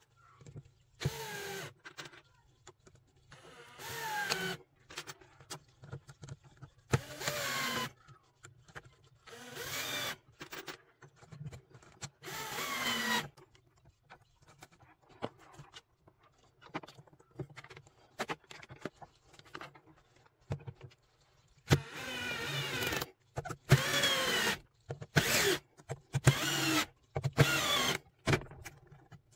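Cordless drill-driver running in about ten short bursts, its motor pitch climbing in each, as it drives wood screws.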